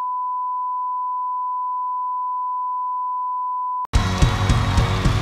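A steady, single-pitch line-up test tone of the kind played with colour bars, cutting off abruptly almost four seconds in. Right after it, music with a heavy bass beat starts.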